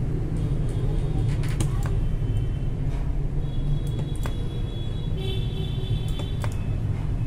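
Battery-cell spot welder in use on 0.2 mm nickel strip: a steady low hum, with several short sharp clicks as the electrodes fire, and a high whine joining about three and a half seconds in.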